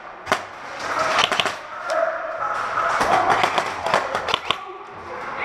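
Airsoft guns firing short bursts of sharp clicks: a single crack near the start, then bursts about a second in and again around three and four seconds in, over steady background noise.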